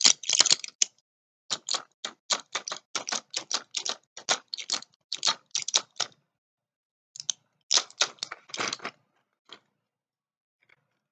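Medicine packaging being handled: runs of crisp clicks and crackles, several a second, with brief pauses, thinning to a few single clicks near the end.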